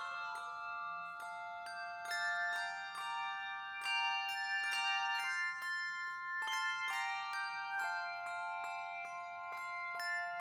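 Instrumental music of bell-like tuned percussion: struck notes ringing on and overlapping in a slow melody with chords.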